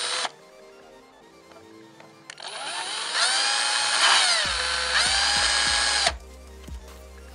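Electric drill with a 3 mm bit drilling out the small air hole in a fire extinguisher's metal valve body to widen it for better airflow. A short run cuts off about a third of a second in; after a pause of about two seconds the drill whines for about four seconds, dipping in pitch midway, then stops abruptly.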